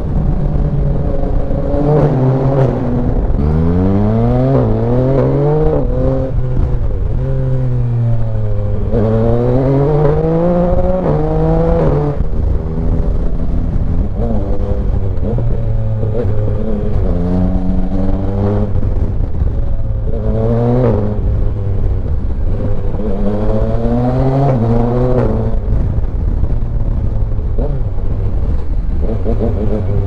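Yamaha Tracer 900 GT's 847 cc inline-three engine under repeated acceleration, its note rising with each pull and dropping back at each gear change or roll-off.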